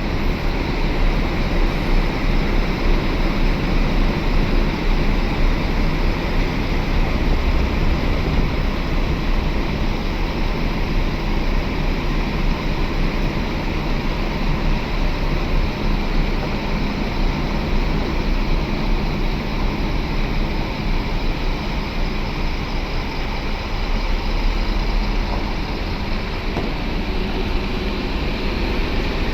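Large buses' diesel engines running steadily, a constant low rumble.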